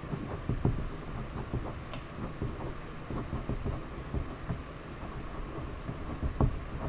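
Handwriting with a pen on paper: irregular scratching strokes and small knocks against the desk, with one louder knock near the end.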